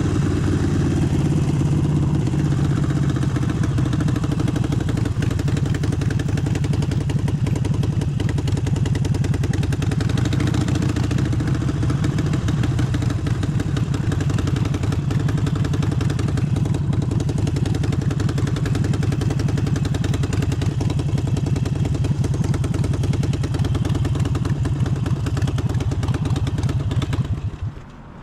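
Harley-Davidson Forty-Eight's air-cooled V-twin running steadily, then cutting off near the end.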